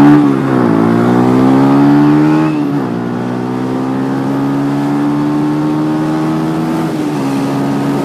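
Yamaha M-Slaz 150cc single-cylinder motorcycle engine accelerating through the gears: the revs climb and fall at an upshift just after the start, climb again and fall at a second upshift at about three seconds, then hold steady while cruising, easing slightly near the end.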